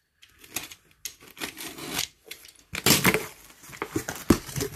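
Utility knife slicing through packing tape on a cardboard box, a run of short scratchy strokes; from about three seconds in, louder rustling and scraping of cardboard and packing paper as the box is opened.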